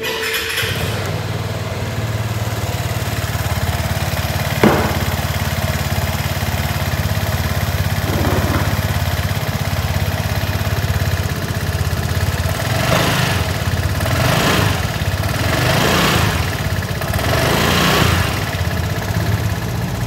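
Vespa Primavera 155 scooter's single-cylinder four-stroke engine idling steadily, with a sharp click about four and a half seconds in, then given four short throttle blips in the second half.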